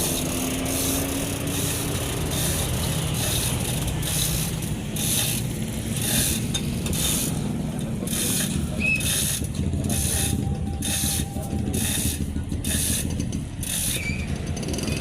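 A hand-worked metal ratcheting mechanism clicking in repeated strokes, about two a second, over a steady low rumble.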